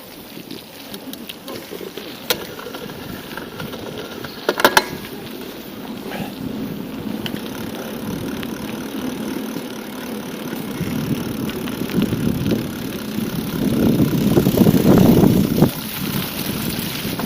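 Wind buffeting the microphone of a camera on a moving bicycle, over steady riding noise, with two sharp clicks a few seconds in. The wind rumble builds to its loudest in the second half.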